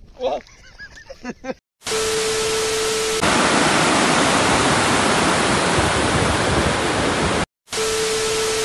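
Hiss of a TV-static transition effect with a steady beep starting about two seconds in, giving way to loud, steady rushing water from a dam spillway. The static hiss and beep return near the end.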